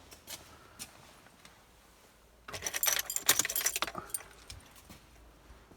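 Car keys jangling on their ring for about a second and a half as the ignition key is handled, after a few light clicks.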